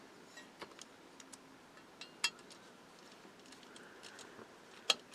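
Faint, scattered clicks and taps of a small screwdriver and plastic model-kit parts being handled while screws are snugged into a plastic grille, the loudest click near the end.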